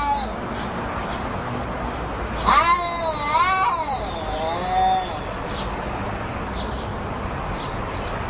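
Cats fighting: a long, wavering yowl that rises and falls in pitch from about two and a half seconds in until about five seconds, with the tail of another yowl at the very start, over a steady background hiss.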